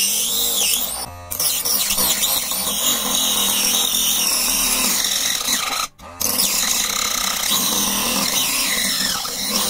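Homemade rotary tool, a small 555 DC motor driving a mini circular saw blade, whining as the blade cuts through layered plywood, its pitch wavering with the load. The sound breaks off briefly twice, about one second and six seconds in.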